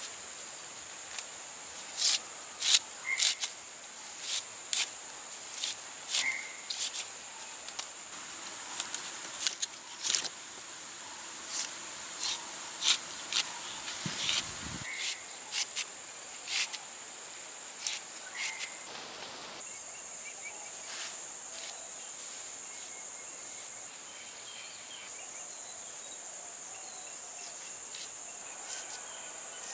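Crickets chirring steadily at a high pitch, over a series of sharp snaps and crackles from lasia stalks being peeled and broken by hand. The snaps come often through the first two-thirds and die away after that.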